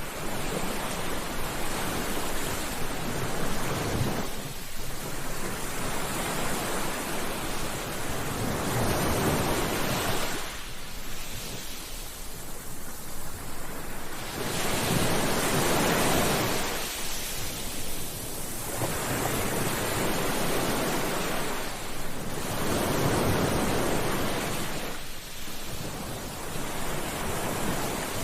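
Ocean waves breaking on a beach, each surge of surf swelling and washing back every few seconds.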